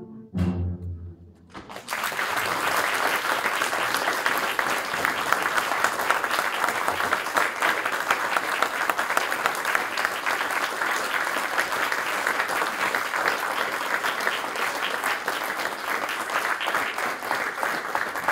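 A cello ensemble's last notes ring out and die away, then about two seconds in an audience breaks into steady applause.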